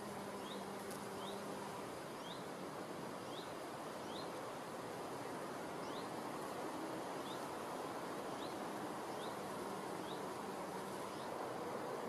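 Honeybee buzzing as it forages on flowers, a low hum that comes and goes, over steady outdoor hiss. Short high chirps repeat about once a second in the background.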